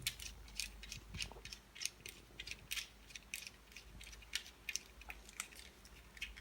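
Faint, irregular clicks and ticks of small hand work on electrical parts, as the phase wire is fitted into the circuit breaker's terminal.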